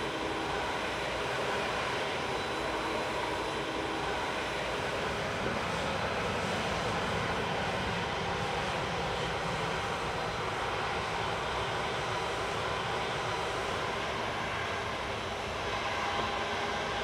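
Jet engines of a Boeing 737-800, its CFM56-7B turbofans at taxi power, running steadily with a constant whine over a wide rush of noise.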